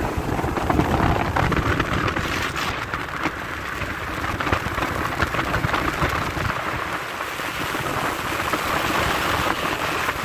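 Speedboat with an outboard motor running at speed: a steady rushing of wind on the microphone and water along the hull, with no distinct engine note standing out.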